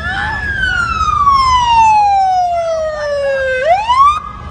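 Police car siren wailing loudly: one long, slow falling sweep, then a quick rise that cuts off abruptly about four seconds in as the patrol car pulls up.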